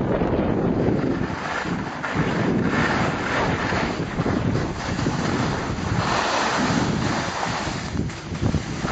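Wind buffeting the camera microphone while skiing downhill, with the hiss of skis sliding over the snow swelling and fading every second or two with the turns.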